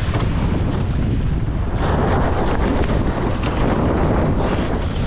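Wind buffeting the microphone over water rushing past a J/70 sailboat's hull as it sails fast through chop in a strong breeze.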